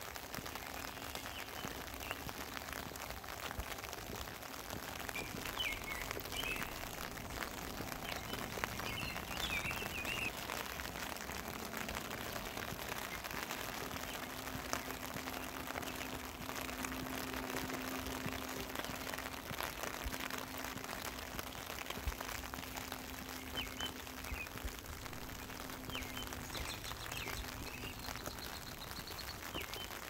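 Steady rain falling, with many separate drop hits, and a few short bird chirps now and then. A faint low steady hum runs through the middle and fades near the end.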